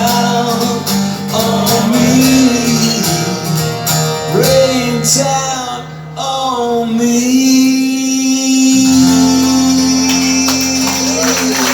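Live rock song in its closing bars: guitar with male singing, ending on a long held note in the second half.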